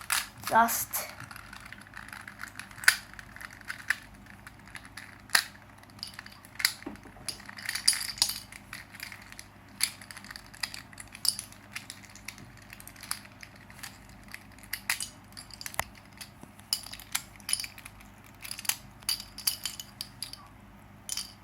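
Plastic Rubik's cube pieces clicking and clattering as the cube is broken apart piece by piece: many sharp, irregular clicks.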